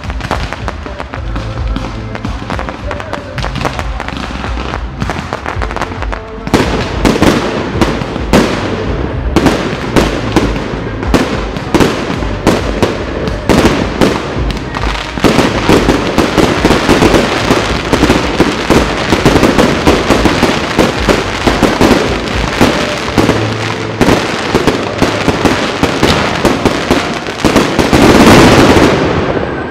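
Fireworks display: many shells bursting in quick succession over music playing underneath. The bangs thicken about six seconds in and build to a dense, loud barrage near the end.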